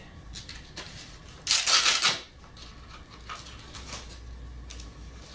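A hook-and-loop strap on a dog's hock brace being pulled open: one short, loud rip about a second and a half in, with small clicks and rustles of the strap and the plastic brace being handled around it.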